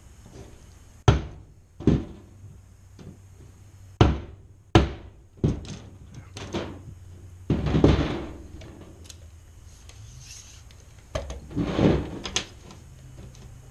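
Tools and a tape measure being handled and set down on a plywood work surface over a sheet of grille mesh: a series of sharp knocks and clacks, with two longer scraping stretches, one about halfway through and one near the end.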